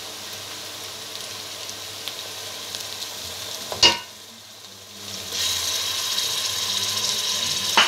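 Grated onions with ginger-garlic paste frying in hot oil in an aluminium pot, sizzling steadily. A sharp knock comes about four seconds in, and the sizzle grows louder and brighter about five seconds in.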